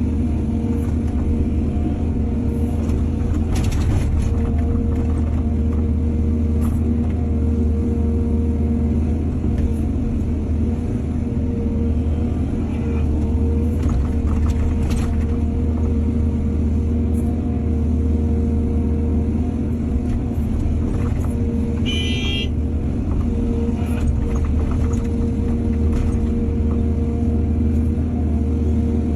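Excavator's heavy diesel engine running steadily, with a few brief knocks and a short high-pitched squeal about 22 seconds in.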